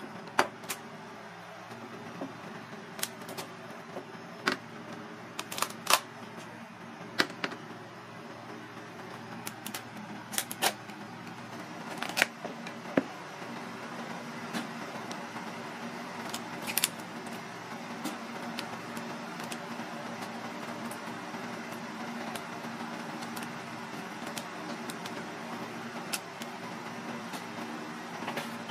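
Sharp, irregular clicks and cracks of a knife prying open a large crab's shell on a plastic cutting board, scattered through the first half and stopping after about 17 seconds. Under them runs a steady kitchen hum.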